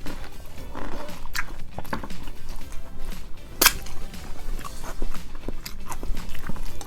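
Close-up eating of roasted chicken, with irregular biting, chewing and mouth clicks over background music. The sharpest click comes a little past halfway.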